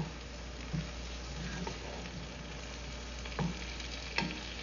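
Mushrooms and melting cheese sizzling steadily in a frying pan over a gas flame turned up high, while a wooden spatula stirs them, knocking against the pan about four times.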